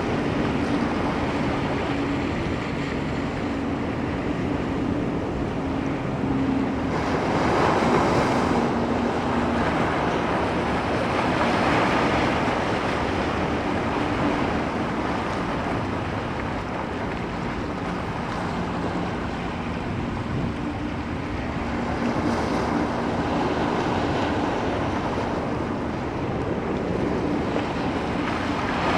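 Ocean waves breaking and washing up as steady surf, swelling louder with larger breakers about a quarter of the way in and again past the halfway point.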